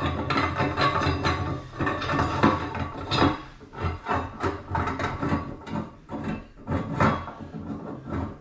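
Irregular knocks and clanks, about two a second, from work at the joints of a cast iron column radiator as its section couplers are tightened to pull the sections together.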